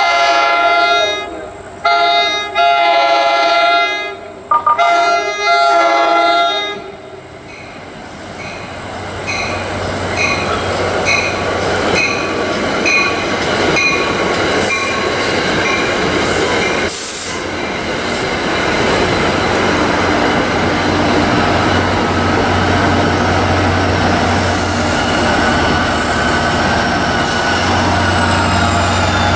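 NJ Transit commuter train's horn sounding the grade-crossing signal: two long blasts, a short one and a long one. Then the train passes close by, its rumble and wheel clatter building up and holding steady.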